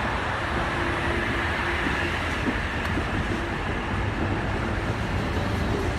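Oscar H-set electric multiple unit pulling out of the station, a steady rolling train noise with a faint hum that comes and goes.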